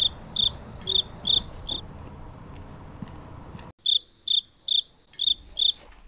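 Cricket-chirp sound effect, the stock comedy cue for an awkward silence after a joke falls flat: short, high, evenly spaced chirps, about two a second, in two runs of about five with a pause of a couple of seconds between them.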